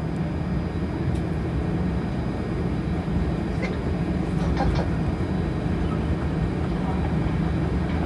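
Airliner cabin noise while taxiing after landing: the steady low rumble of the jet engines at idle and the aircraft rolling along the taxiway.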